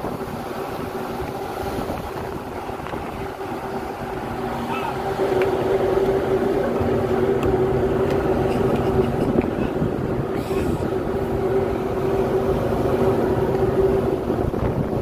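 Steady drone of a ship's engines and machinery on the open deck, with a steady hum that gets louder about five seconds in.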